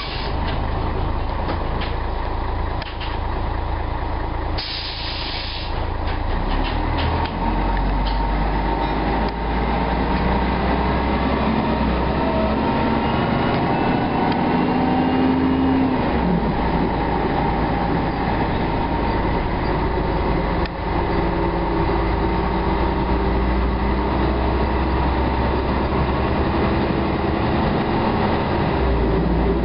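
Scania L113CRL bus's 11-litre six-cylinder diesel running with its cooling fan hoovering: a steady whine over the low engine note. A short hiss of air about five seconds in, and a tone that rises for a few seconds and drops away suddenly around the middle.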